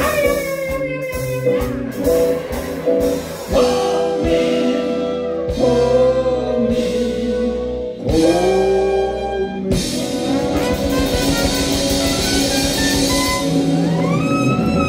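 A man singing long held notes into a microphone over a live band with drums, loud and amplified. After about ten seconds the held notes give way to the band playing on, with a rising run of notes near the end.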